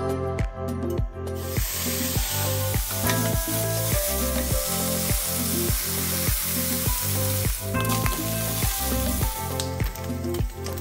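Cubes of pork belly sizzling as they fry in a wok, turned now and then with a slotted spatula. The sizzle starts about a second in and drops away near the end, over background music with a steady beat.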